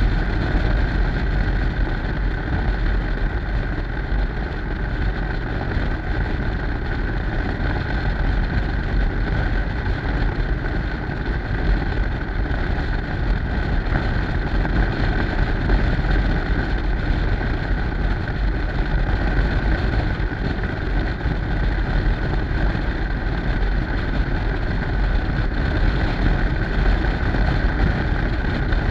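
Yamaha Stryker V-twin cruiser motorcycle running steadily under way, with heavy wind rumble on the microphone.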